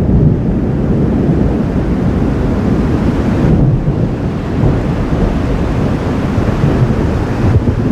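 Thunder rumbling continuously, mixed with wind buffeting the microphone.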